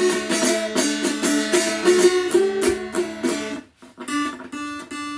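Appalachian lap dulcimer tuned in D, strummed: a melody over a steady drone, stopping briefly a little past halfway before a held chord rings on. The strings are already drifting a little out of tune.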